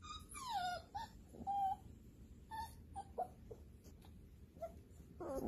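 Corgi puppies yelping and whining as they play-fight: a long falling whine near the start, then a string of short, high yips and squeals.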